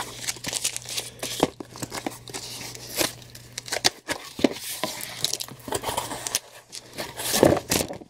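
Clear plastic comic packaging crinkling and rustling as it is handled, with irregular small crackles and taps.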